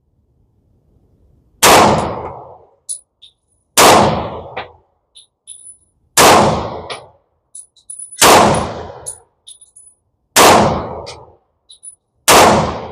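Six shots of slow aimed fire from an FN 510 Tactical 10mm pistol shooting 180-grain CCI Blazer rounds, about two seconds apart, each a sharp report with a short ringing tail. Faint high clinks come between the shots.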